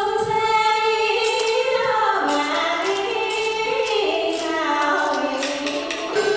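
Female voices singing a traditional Vietnamese water puppet theatre song in long, sliding held notes, with light percussion strokes behind them.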